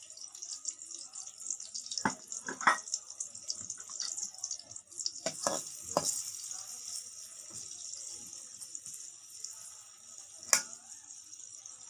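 Sliced onions sizzling steadily in hot oil in an aluminium pot as they start to brown, with a metal spatula scraping and knocking against the pot a few times, the sharpest knock about ten and a half seconds in.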